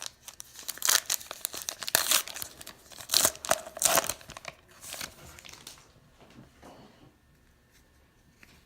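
Baseball card pack wrapper being torn open and crinkled, in a run of rustling bursts over about five seconds, then fading to faint handling.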